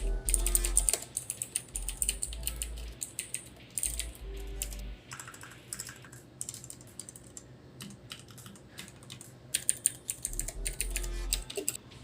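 Typing on a mechanical keyboard with Outemu switches and PBT keycaps: quick runs of key clicks broken by short pauses.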